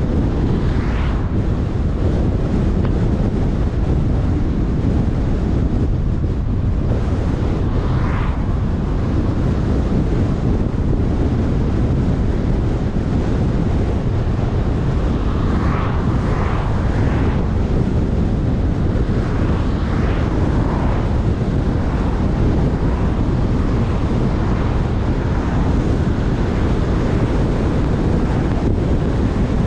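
Steady wind and road noise from a car driving at road speed, a low rumble with wind buffeting the microphone. A few brief swells as oncoming cars pass.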